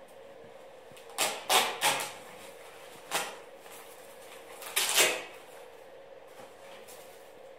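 Fabric back brace being pulled and handled by hand, making short rustling scrapes: three in quick succession about a second in, one near three seconds, and a longer one about five seconds in.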